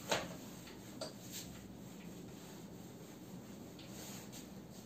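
Marker writing being wiped off a whiteboard: faint rubbing strokes, with a short sharp knock just after the start and a lighter one about a second in.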